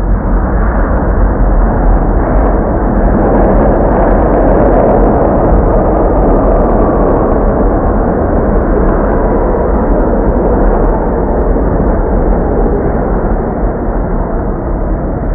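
New York City subway train running: a loud, steady rumble, swelling a few seconds in and easing slightly near the end.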